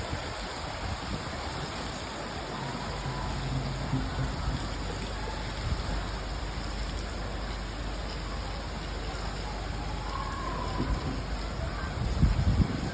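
Steady rain falling, an even hiss that holds throughout. A few low thumps come near the end.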